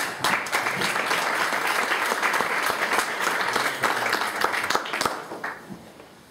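Audience applauding, many hands clapping together; the applause thins out and dies away about five seconds in.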